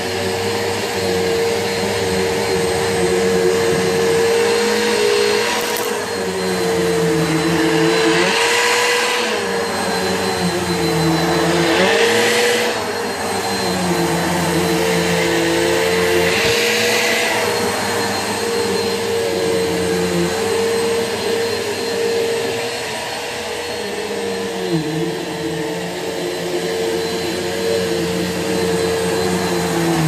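Bissell PowerForce Helix bagless upright vacuum with its 8-amp motor running while it is pushed back and forth over carpet. A steady motor hum dips briefly in pitch every few seconds with the strokes, and a louder hiss swells three times.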